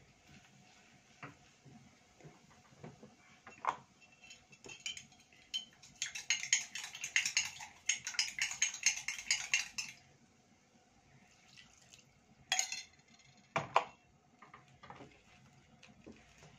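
A silicone spatula stirs a crumbly flour-and-ghee dough in a pot, scraping and knocking against the pot. There is a spell of fast, busy scraping in the middle and a couple of sharper knocks after it.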